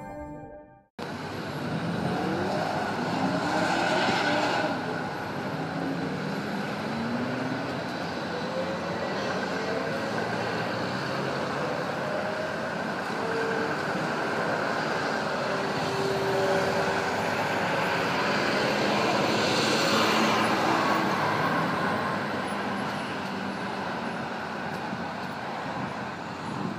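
City traffic: a steady background of street noise, with a vehicle going by about four seconds in and another around twenty seconds in.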